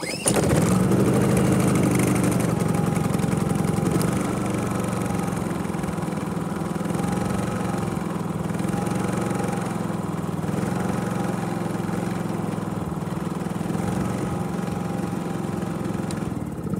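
Predator 3500 inverter generator's single-cylinder engine catching on a rope pull and running steadily, settling a little quieter after about four seconds. It is running again with its new ignition control module: a good sound.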